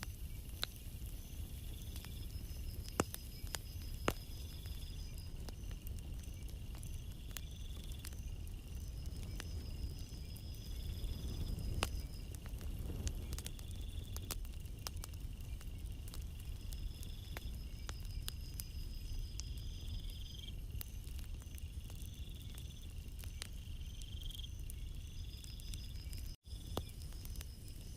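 Calm sea washing on a beach as a low steady rumble that swells a little midway, with crickets chirping in repeated pulsed trills and scattered sharp clicks.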